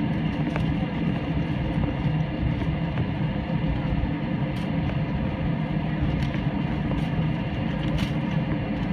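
Steady engine drone and air noise inside an airliner cabin, with a low hum that holds constant, and a couple of faint clicks near the middle and the end.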